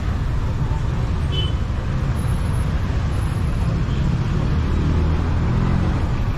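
Busy city street ambience: a steady low rumble of motor traffic, with a vehicle engine running louder about five seconds in, and passers-by talking in the background.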